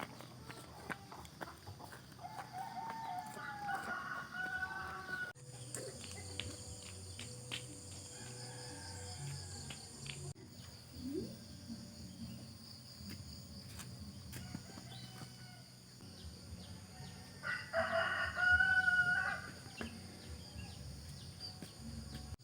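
Rooster crowing twice: a fainter crow about three seconds in and a louder one near the end, over a steady high-pitched insect chorus.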